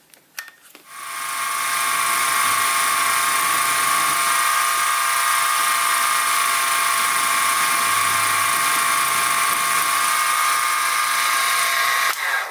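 Sieg SX2P mini mill spindle running at speed while a 1.2 mm drill bit bores a pin hole through a crank web into the crank pin. It makes a steady high whine that comes up to speed about a second in and cuts off just before the end.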